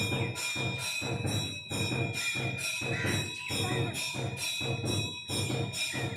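Temple bell rung rapidly and steadily, about three strokes a second, its ring carrying on between strokes.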